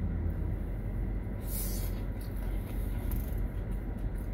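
Steady low rumble of a car idling, heard inside the cabin, with a short hissing rustle about a second and a half in.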